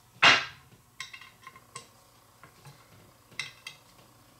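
Allen key clicking and clinking against small M2.5 screws and the metal plate of an off-axis guider while the screws are snugged up: one louder knock near the start, then a few light metallic clicks.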